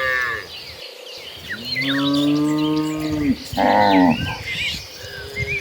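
Cows in a herd mooing in turn: a call trailing off at the start, a long low moo about two seconds in, a shorter, higher moo around four seconds, and another starting just at the end.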